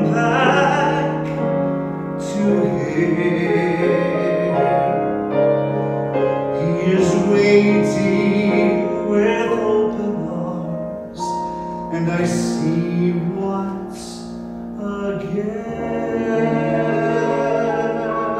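A man singing a slow solo song while accompanying himself on a grand piano.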